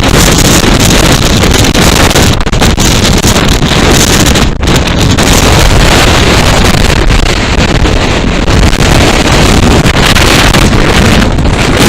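Storm-force wind blasting across the microphone: a loud, constant, distorted rumble with a few brief lulls.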